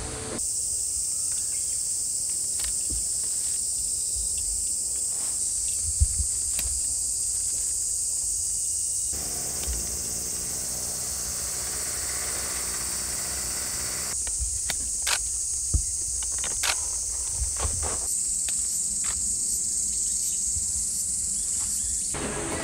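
A steady, high-pitched chorus of summer insects, with occasional sharp clicks and snaps.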